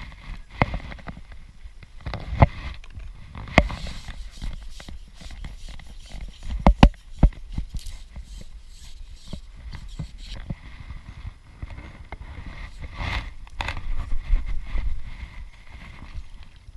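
Irregular knocks, taps and rustling of fishing tackle being handled close up, with a cluster of sharper knocks about seven seconds in and a busier stretch of rustling near the end.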